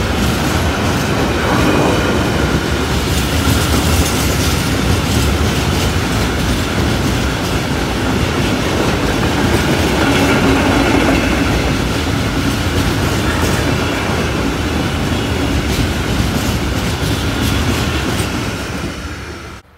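A freight train of large hopper wagons passing at speed over a level crossing: a steady loud rumble and rattle of wheels on the rails, with many clicks as the wheels run over the rail joints. The sound cuts off suddenly near the end.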